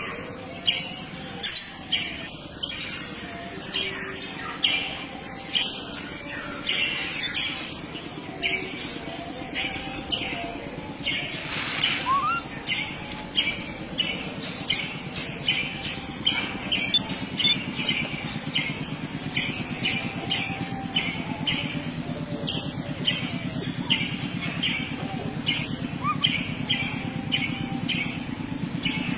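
A bird calling with short repeated chirps, about two a second, over a steady low hum.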